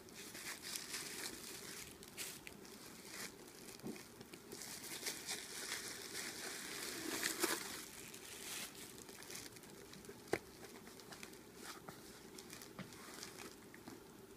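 Tissue paper rustling and crinkling while a leather handbag and its inner pockets are handled, with light taps and a sharp click about ten seconds in.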